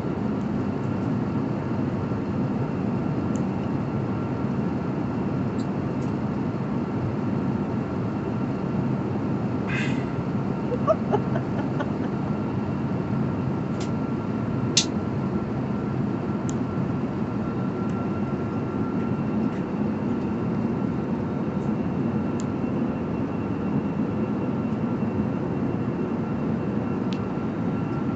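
Steady airliner cabin noise in flight: an even rush of engine and airflow noise with a faint constant high whine. A few small clicks and taps come between about ten and fifteen seconds in.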